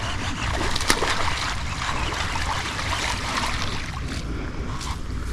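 Water splashing and churning as a hooked largemouth bass is fought at the surface, with a few sharp splashes or clicks, the loudest about a second in.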